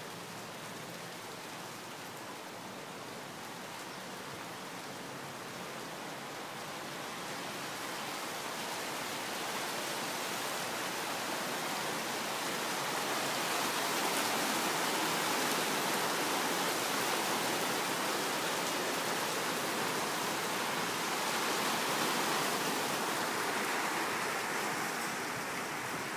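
Steady rain falling, a continuous hiss that grows heavier over the first half and then holds.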